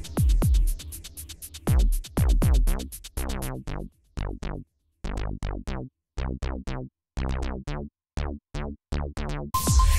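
Electronic background music with a drum-machine beat. About three seconds in it thins to separate, quickly falling synth hits with short silences between them, and the full beat comes back near the end.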